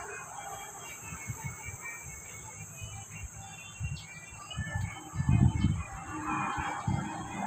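Birds chirping in short repeated notes, with dull low thumps on the microphone, loudest about five seconds in.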